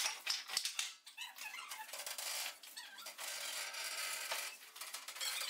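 Hand pallet truck and dolly wheels squeaking, with knocks and scraping, as a heavy CNC mill is pulled across a rough concrete floor; a few sharp clicks come in the first second.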